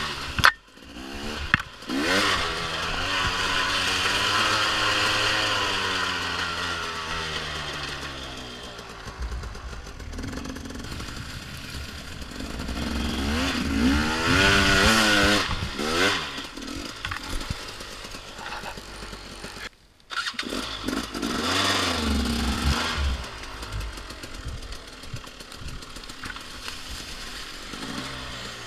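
A 2014 KTM XC-W 250 two-stroke dirt bike engine being ridden, revving up and down with the throttle so its pitch rises and falls again and again. A few sharp knocks come early, and the sound breaks off briefly about twenty seconds in.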